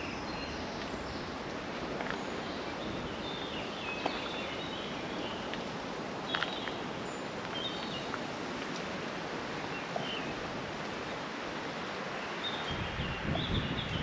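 Woodland ambience: a steady rustle of leaves and outdoor noise with short bird chirps now and then. Near the end, wind buffets the microphone with a low rumble.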